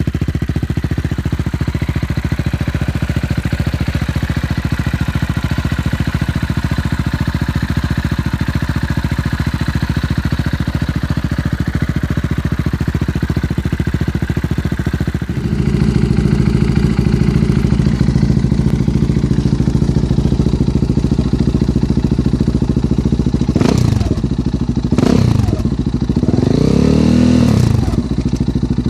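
KTM 690 Duke single-cylinder engine idling through an aftermarket exhaust, steady and even. About halfway through it changes to a louder, deeper idle, and near the end the throttle is blipped three times, the last rev held longer.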